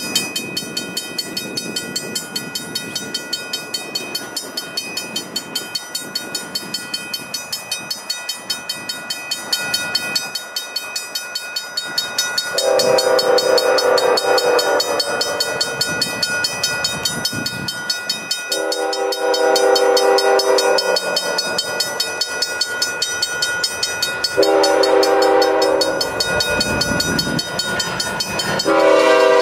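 A grade-crossing bell ringing steadily, about twice a second, as a CN freight led by a GE ES44DC diesel approaches. Nearly halfway through, the locomotive's air horn sounds the crossing signal: two long blasts, a shorter one, and a final long blast beginning near the end, with the rumble of the train growing just before it.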